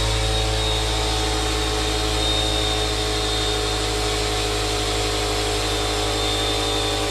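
Air compressor running steadily, building pressure in its empty tank.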